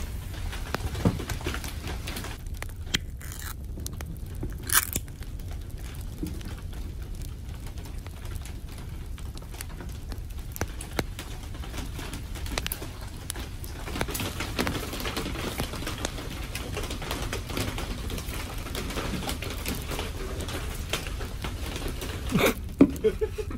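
Soft crackling and patter with scattered small clicks over a steady low rumble, busier in the second half, with a couple of louder knocks near the end.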